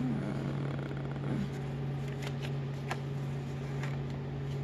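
Paper pages and flaps of a handmade envelope junk journal being handled and folded, with a few soft rustles and light ticks, over a steady low hum.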